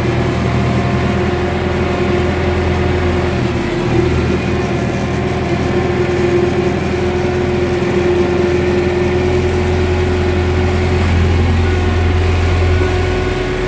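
UTB 650 tractor's four-cylinder diesel engine running steadily under load, pulling a plough through the soil, heard from inside the cab.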